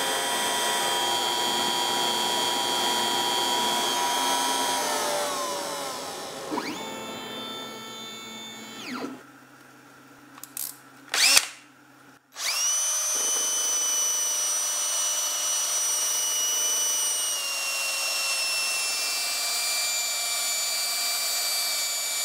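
An X-Carve CNC router spindle runs and then spins down about five seconds in. After a short gap with a few sharp clicks, a DeWalt 20V cordless drill spins up a nylon flap wheel and runs steadily, dipping slightly in pitch partway through, as the wheel buffs the burr off the engraved aluminum plate.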